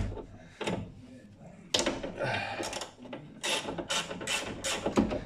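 Hand socket ratchet clicking in short runs as it undoes the bolts holding a car door's window regulator, with a couple of sharp metal clicks near the start.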